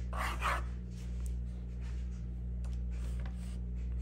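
Felt-tip pen scratching on paper on a clipboard, a short scratchy stroke as the answer is written and circled, then a few faint taps of handling, over a steady low hum.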